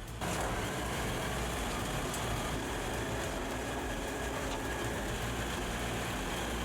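Heavy diesel-powered forestry machinery running steadily under load, a dense grinding noise over a low engine hum. It starts abruptly just after the beginning.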